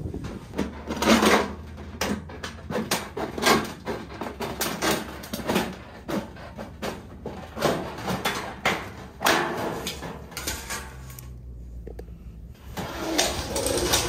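Hand tin snips cutting galvanized round duct pipe along a marked line: a run of uneven metallic snips with the thin sheet metal crinkling and flexing, growing louder near the end as the cut pieces come apart.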